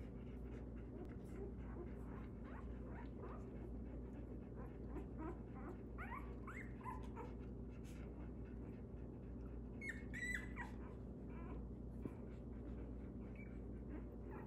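Newborn Belgian Malinois puppies squeaking and whimpering as they nurse: scattered short high squeaks, with a louder squeal about ten seconds in, over a steady low hum.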